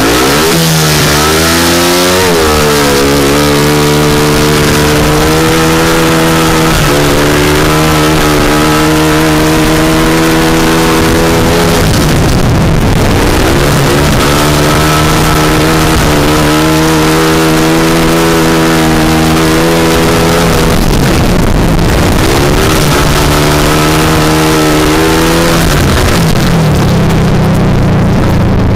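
Speedway motorcycle engine running hard, heard close up from a camera on the bike: the pitch climbs steeply at the start, holds high, and twice dips and climbs again, about a third and two thirds of the way through.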